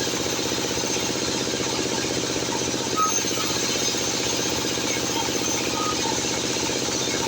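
Sawmill machinery running at a steady pace, an even engine-like drone, with a few faint short squeaks.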